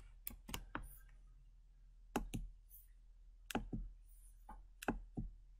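Computer keyboard keystrokes and mouse clicks: a dozen or so short, sharp clicks in small groups, some of them pressed close together as a pair.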